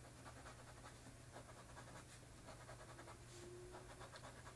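Faint scratching of a pen making short strokes on sketchbook paper, over a low steady hum.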